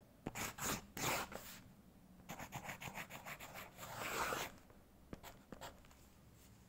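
Scratchy writing strokes as a signature is written: two strokes, then a quick run of short strokes, then a longer sweeping stroke about four seconds in, tapering off after.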